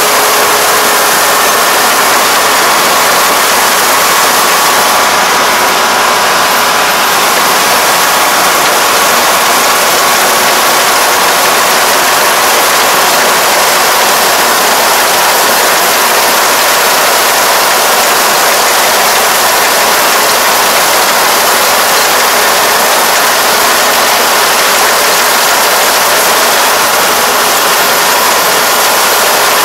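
Four-row rice combine harvester running steadily under load as it cuts and threshes heavily lodged rice: a loud, unbroken mechanical noise from the engine and working parts, with a faint hum.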